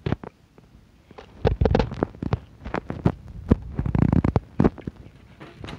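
Biting into a toasted quesadilla and chewing it right at the microphone: a quick string of crunches and clicks with low thumps, picking up about a second in.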